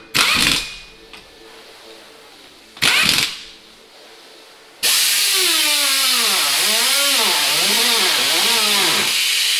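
Pneumatic impact wrench running lug nuts onto a steel wheel in two short bursts, one at the start and one about three seconds in. About five seconds in, a loud steady hiss of air begins, with a wavering tone sliding down and up over it for several seconds.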